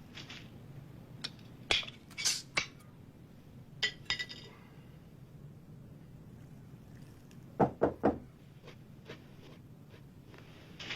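Glass and dishes clinking a few times, then three loud knocks on a wooden door in quick succession about two thirds of the way through.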